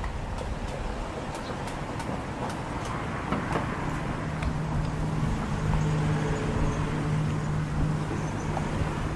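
Street traffic going by; from about four seconds in, a nearby vehicle engine runs with a steady low hum.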